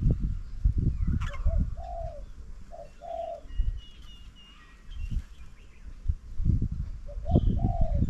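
A dove cooing: a phrase of short and longer low notes that dip slightly at the end, then another phrase near the end. Small birds chirp faintly in between, over repeated dull low thumps and rumbles.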